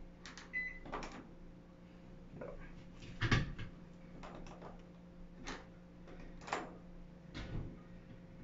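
Plastic control knobs and the timer dial of a Frigidaire washer clicking and knocking as they are turned and pressed, about nine separate knocks with the loudest about three seconds in. This is the knob-and-press sequence that puts the washer into diagnostic mode. A short beep sounds about half a second in, over a steady low hum.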